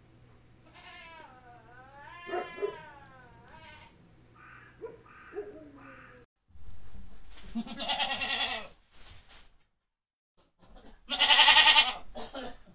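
Goat doe in labour bleating: a long wavering bleat, a few short calls, then two loud bleats in the second half.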